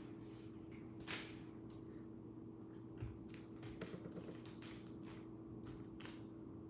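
Soft brushing and rustling of a lump of clay being rolled by hand, first between the palms and then over newspaper, with a dull thump about three seconds in. A faint steady hum runs underneath.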